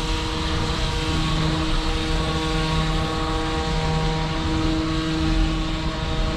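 High-pressure drain-jetting machine running steadily, its engine-driven pump giving a constant hum with several held tones over a low rumble.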